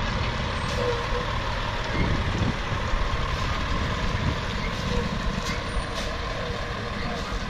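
Diesel engine of a box truck running while it backs up, with its backup alarm beeping.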